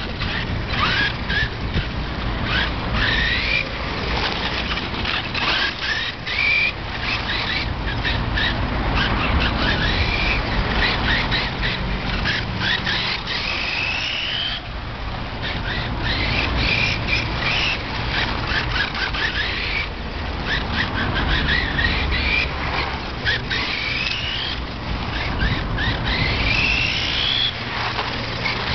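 Maverick Strada MT Evo 2 RC monster truck's brushless electric motor whining, rising in pitch each time the truck accelerates, again and again every few seconds, over a steady low hum and many short ticks.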